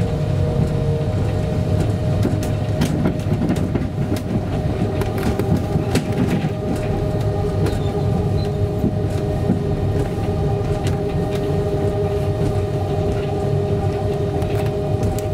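Heathrow ULTra pod, a battery-electric personal rapid transit car, heard from inside its cabin while running along the guideway: a steady rumble with a steady electric drive whine and scattered clicks and rattles. A second, slightly lower whine joins about six seconds in.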